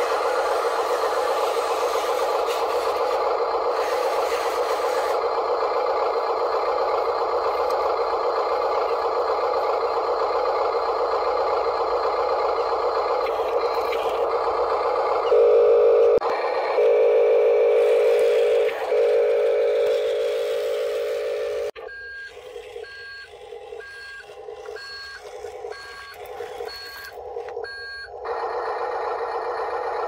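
Radio-controlled toy construction vehicle running, a steady buzzing hum from its motors and sound module that grows louder for a few seconds in the middle. About two thirds of the way in, it switches to the dump truck's electronic reversing beeps, about one and a half a second for some six seconds, and then the buzzing resumes.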